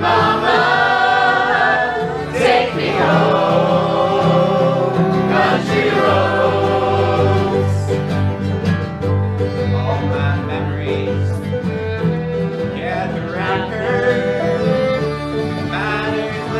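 Live acoustic string band playing a bluegrass-style song: banjo and acoustic guitars, with several voices singing together over them.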